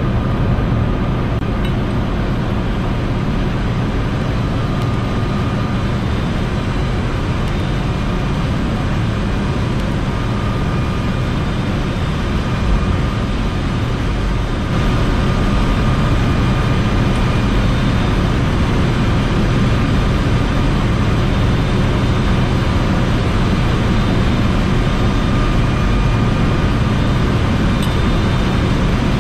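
Steady ship engine-room machinery noise: a dense continuous drone with faint steady whining tones above it. It gets a little louder about halfway through.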